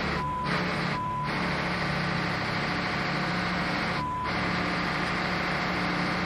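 Steady drone of a crab boat's engine-room machinery, broken by short, single-pitched censor bleeps over cursing: two in the first second and a half and a third about four seconds in.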